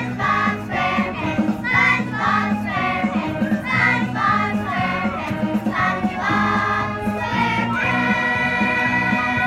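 Junior children's choir singing together, several voices in harmony, ending on a long held chord near the end.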